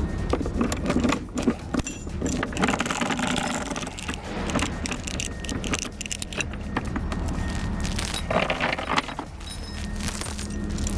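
Loose metal clinking and rattling in irregular bursts, over a vehicle engine idling steadily.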